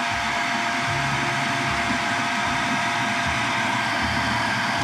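Electric food processor running steadily with a constant motor whine, puréeing a thick mix of Greek yogurt, avocado and lime into a cream.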